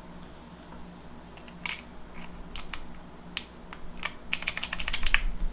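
Keys clicking on a mechanical keyboard with Cherry MX Blue clicky switches: a few scattered single keystrokes, then a quick run of them about four seconds in.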